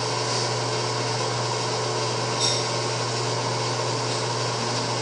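Steady whirring hum of a fan or small motor running at an even level, with a faint brief sound about two and a half seconds in.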